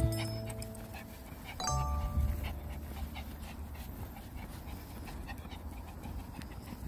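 A small Maltese dog panting quietly as it walks along on its leash.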